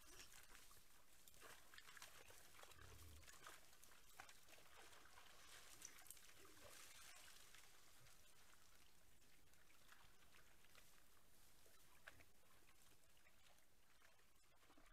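Faint wild boar grunts with soft splashing and shuffling in a muddy wallow, as adult boars and piglets lie and root in the wet mud.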